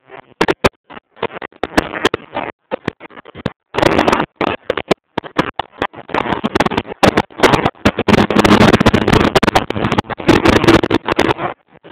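Heavy wind buffeting on a phone microphone during a drive, in irregular gusts that keep cutting out to silence and bursting back in.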